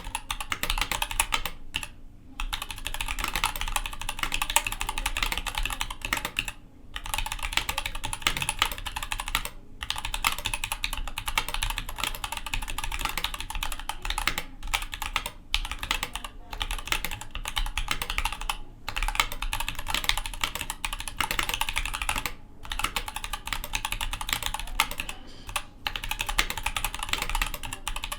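Continuous fast typing on a custom Dolch C.R. mechanical keyboard with Zealios V2 tactile switches and GMK doubleshot ABS keycaps: a dense run of keystroke clacks, broken by brief pauses every few seconds.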